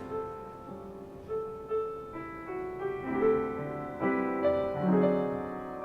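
Film score music led by a soft piano, playing slow sustained notes and chords.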